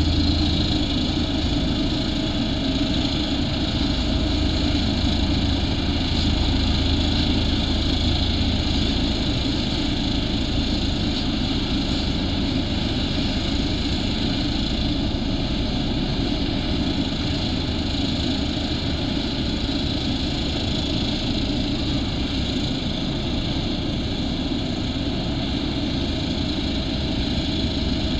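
Ammann ASC100 single-drum roller's diesel engine running steadily as the compactor drives over loose aggregate; a deep low hum is stronger for about the first nine seconds, then eases.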